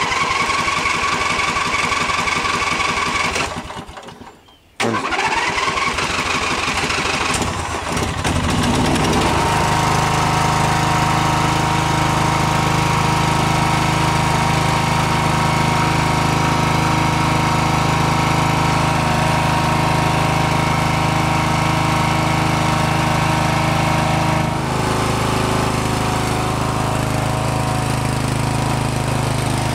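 Electric starter cranking the 14.5 hp Briggs & Stratton overhead-valve engine on a Murray riding mower. It stops briefly, cranks again, and the engine catches about eight seconds in. It then runs steadily, settling a little lower in pitch near the end.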